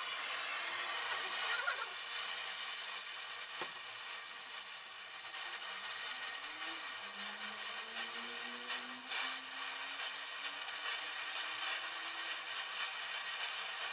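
Gas welding torch flame hissing steadily while welding a steel heating pipe at a radiator, with a single click a few seconds in and a faint low tone slowly rising in pitch in the second half.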